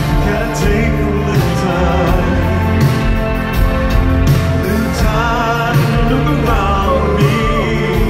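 Rock band and orchestra playing a slow rock ballad live, full bass, keys and strings, with a sung vocal line wavering over it in the second half.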